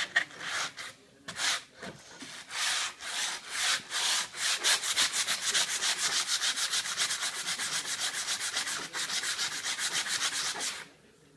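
Sandpaper rubbing back and forth along a wooden guitar neck. The strokes start uneven, then settle into a fast, steady rhythm, and stop shortly before the end.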